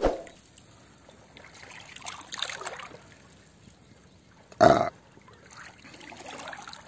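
Sea water lapping and sloshing in soft swells that rise and fall every couple of seconds, with a short, loud hit about four and a half seconds in.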